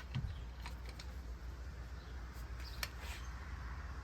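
A few faint, light clicks of a wrench on a cylinder head bolt as the bolt's torque is checked, over a low steady hum.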